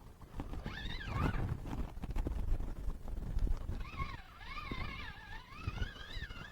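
Wind buffeting the microphone with a low, gusty rumble. Over it, a high, wavering whine rises and falls in pitch, once briefly about a second in and again for the last two and a half seconds.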